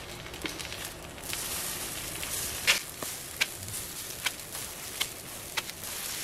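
Blueberry pancakes sizzling on an electric griddle while a silicone spatula flips them one after another. From about the middle there is a short sharp tap with each flip, roughly one every three-quarters of a second.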